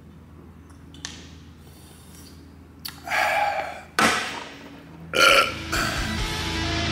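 A man burps loudly twice after gulping a can of soft drink, the first burp drawn out, with a sharp knock in between. Heavy guitar music fades in near the end.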